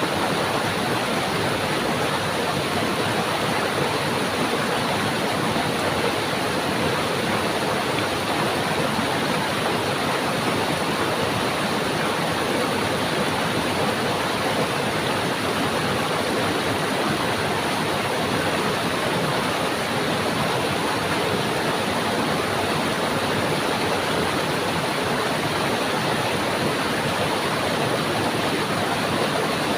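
Stream water running over rocks in a steady, unbroken rush.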